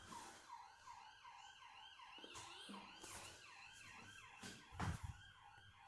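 Faint emergency-vehicle siren in fast yelp mode, its pitch rising and falling about four times a second, taken for a police car. A few sharp cracks break in, the loudest about five seconds in.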